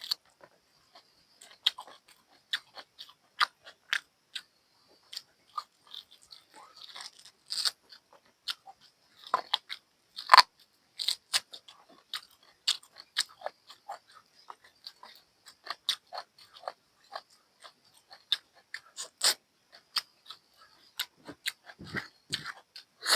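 Close-up eating sounds: chewing, lip smacks and sharp crunchy clicks in an irregular run, from a mouthful of buffalo curry with bone and rice. A few deeper thuds near the end.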